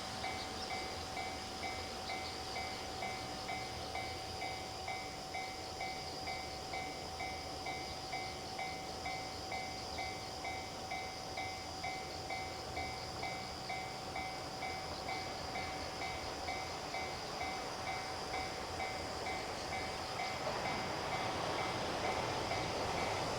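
Japanese railway level crossing's electronic warning bell ringing steadily, about two strikes a second. Near the end the rumble of an approaching train rises beneath it.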